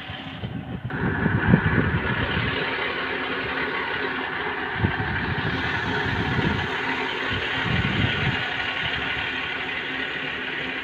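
Diesel engine of a Hitachi hydraulic excavator running steadily, with irregular low thuds over it. The sound gets louder about a second in.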